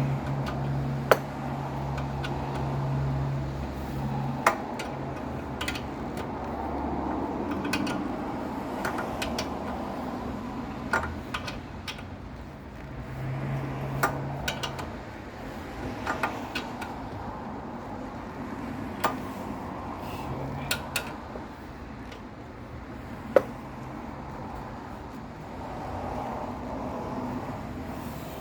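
Hand tools and metal suspension parts clinking and clanking at irregular moments during hand assembly of a car's strut. A low hum runs under the first few seconds and returns briefly in the middle.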